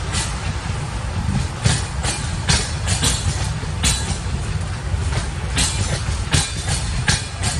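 Bangladesh Railway intercity passenger coaches rolling past at speed: a steady low rumble with irregular sharp clacks of the wheels on the rails, several a second.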